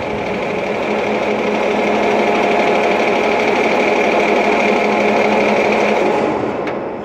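ES 3000 battery-electric shunting locomotive's drive running as it rolls slowly along rails: a steady mechanical hum with a high whine, building at first and dying away about six seconds in.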